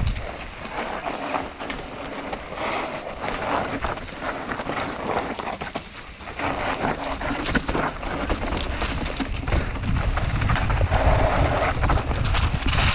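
Mountain bike ridden over a dirt singletrack trail: tyres rolling and the bike rattling with many short clicks and knocks, with wind rumbling on the microphone, heavier in the second half.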